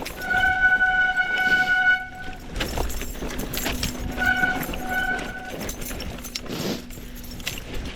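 Mountain bike disc brake squealing in a steady high-pitched tone for about two seconds, then twice more briefly about four seconds in, over the rattle and rolling noise of the ride.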